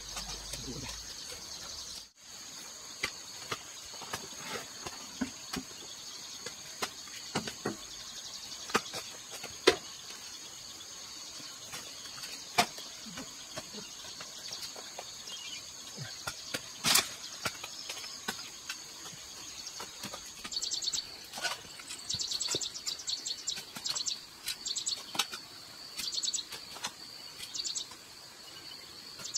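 A steady high insect drone of crickets or cicadas, with scattered sharp knocks and clicks. About two-thirds of the way through, a fast pulsing insect chirp joins in.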